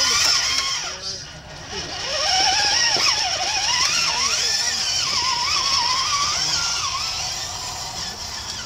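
Electric motors and gear trains of RC scale crawler trucks whining, the pitch wandering up and down with the throttle as they climb a steep dirt bank.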